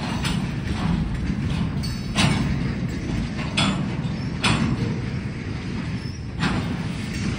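Freight train cars rolling slowly past: a steady low rumble broken by about six sharp metallic clanks and squeaks at irregular intervals.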